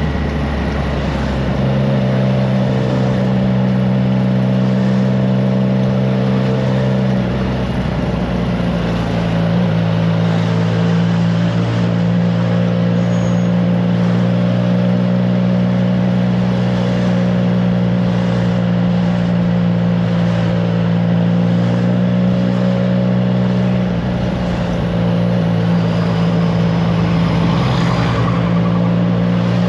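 Triumph Trident 660's inline three-cylinder engine through a FireTong aftermarket exhaust, running at a steady cruising speed, with wind noise on the microphone. The engine note shifts briefly about seven seconds in and again around twenty-four seconds, and starts rising near the end as the bike accelerates.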